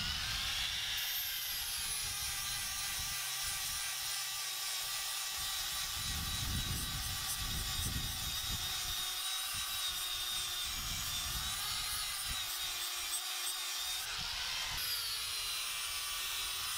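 Angle grinder running with its abrasive disc pressed against the steel of a railroad-track anvil, grinding down welds: a steady high whine over a gritty hiss. The pitch sags briefly a couple of times as the disc bears down.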